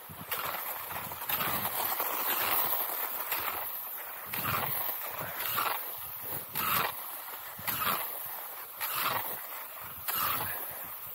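A cross-country skier moving along groomed classic tracks: skis swishing on the snow and poles planting in a steady rhythm, about one stroke a second.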